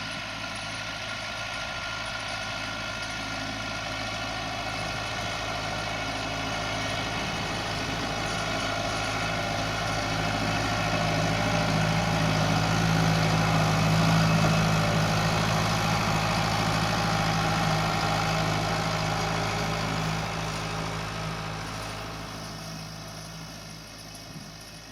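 Farm tractor's diesel engine running steadily at a constant note as it passes by, growing louder to a peak about halfway through and then fading as it moves away.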